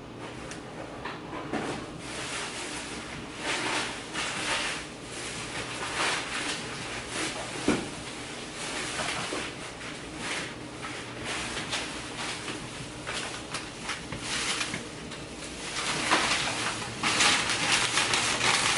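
Plastic grocery bags and snack packaging rustling and crinkling as groceries are handled, with a sharp knock about eight seconds in, and loudest near the end as a crinkly chip bag is picked up. A steady low hum runs underneath.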